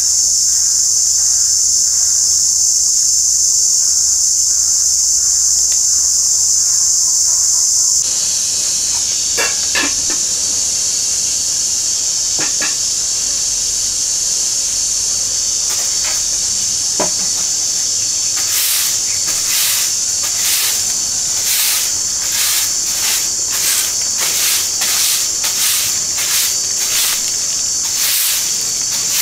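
Loud, steady, high-pitched chorus of cicadas. From about two-thirds of the way in, a grass broom sweeps a cement floor in regular strokes, roughly two a second.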